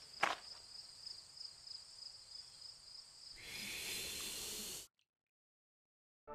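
Cartoon sound effect: a hiss, about a second and a half long, as the kiwi's beak goes into the gold nugget, cutting off suddenly. Before it comes a single footstep over a faint high, steady background tone.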